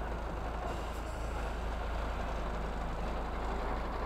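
Articulated lorry's diesel engine running with a steady low rumble as the truck slowly manoeuvres on a narrow road.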